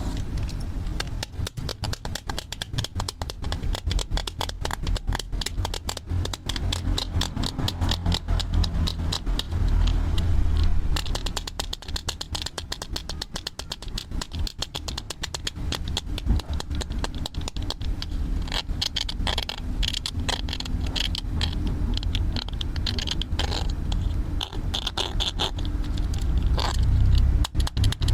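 Plastic toy tools being worked, giving a fast run of clicking and rattling over a low rumble. The clicking grows brighter and denser after about eighteen seconds.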